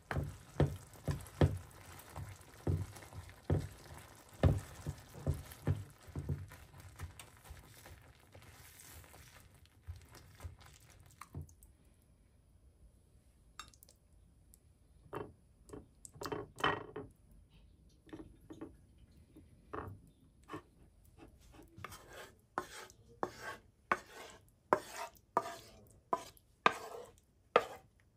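Wooden spatula stirring and knocking in a non-stick frying pan of sizzling beans, with a steady sizzle under it. This stops about 11 seconds in and gives way to scattered clinks of a spoon and dishes. Near the end comes a quick run of knocks and scrapes as the mashed beans are pushed out of the pan onto a plate.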